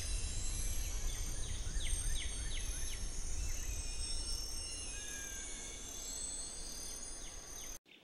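Several birds singing and chirping together, with many quick downward-sliding chirps and high trills, over a low steady rumble. The sound cuts off suddenly near the end.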